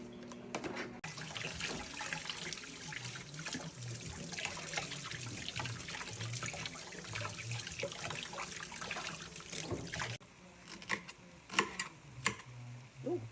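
Kitchen tap running into a sink for about nine seconds, then shut off suddenly; a few clicks and knocks follow.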